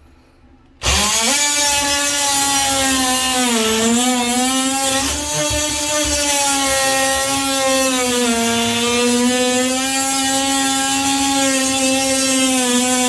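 Ryobi 18V One+ brushed oscillating multi-tool switched on about a second in and running with a steady high buzz. Its pitch sags briefly a couple of times as the blade bears into the grout between bathroom tiles.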